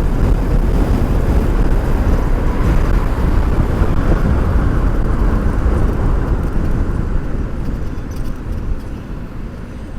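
Wind rumbling on a microphone inside a helmet on a moving e-bike: a loud, steady low rush that eases off over the last few seconds.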